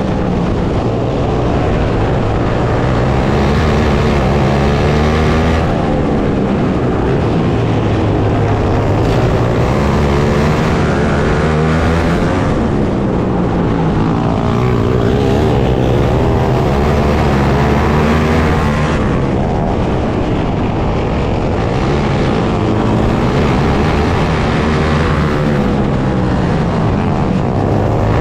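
Outlaw dirt kart engine racing, revving up on the straights and easing off into the turns in a repeating cycle about every five to six seconds.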